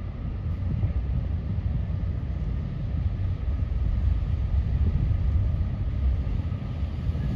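Low, steady rumble of the motor ship San Cristoforo's engine as the ship comes back into port, with wind buffeting the microphone.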